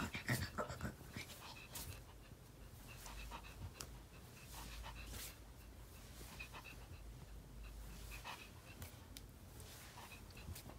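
A small Maltese dog panting softly while a hand pats its head.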